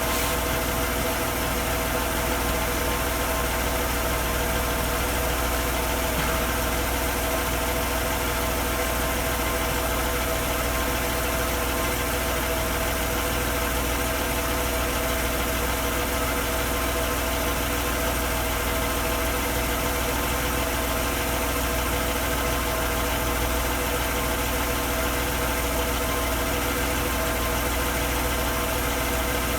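Mercedes-Benz CLK320 W208's 3.2-litre V6 idling steadily, with the noise that the owner suspects comes from the catalytic converter.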